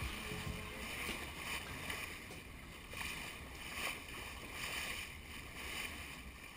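Water rushing and splashing along the hull of a schooner under sail, swelling and easing as the bow meets the waves.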